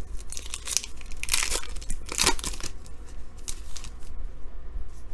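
A trading-card pack's wrapper being torn open and crinkled by hand, in a few rustling tears that are loudest in the first half, followed by softer crinkling as it is pulled away from the cards.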